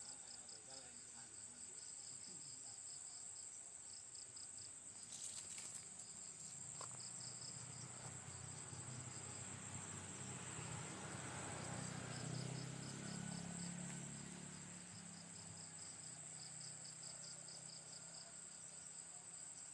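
Night insects: a steady high-pitched cricket trill with a second, rapidly pulsing chirp beneath it. A low hum swells in the middle and fades.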